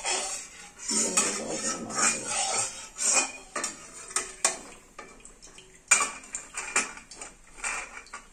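Metal spatula stirring and scraping shredded potatoes around a kadai, with repeated scrapes and clinks of metal on the pan. A single sharp clank about six seconds in is the loudest, and the strokes die away near the end.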